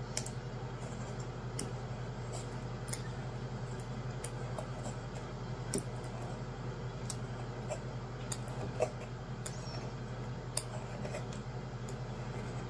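Razor blade scraping dried super glue off a glass screen protector: irregular small clicks and ticks as the blade catches on the hardened glue, over a steady low hum.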